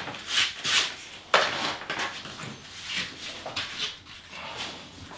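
A rag rubbing and wiping across porcelain tile and the shower pan: a run of short scraping swishes, the loudest about one and a half seconds in.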